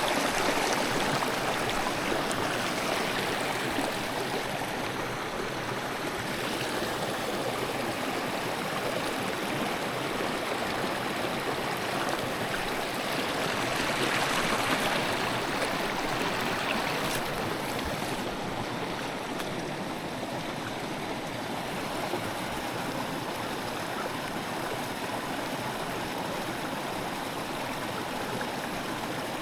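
A small mountain stream running and burbling over rocks, a steady rushing of water.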